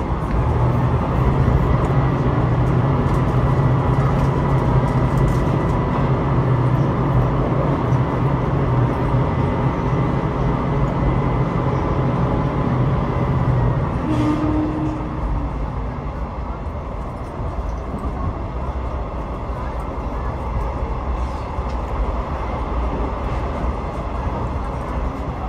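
Passenger train running at speed, heard from inside the carriage: a steady rumble of wheels on rail with a strong low hum that fades out about halfway through, leaving the lighter running noise.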